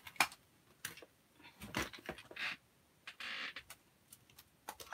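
Scattered sharp clicks and a few soft knocks, with a short rustling hiss a little past the middle.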